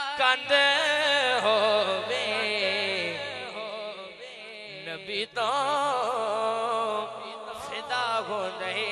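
A young male reciter sings a naat solo through a microphone and PA, in long, wavering, ornamented phrases, with a brief break for breath about five seconds in. A low steady drone is held beneath the voice for much of the time.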